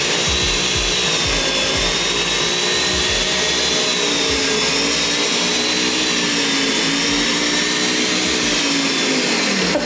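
Electric food processor motor running steadily at full speed, chopping crackers into crumbs for a crust; its pitch wavers slightly, then falls as it winds down and stops near the end.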